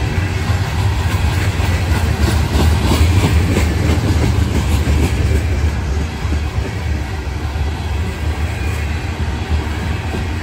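CSX freight train's open-top hopper cars rolling past, a steady low rumble with wheels clicking over the rails, the clicking most marked from about two to five seconds in.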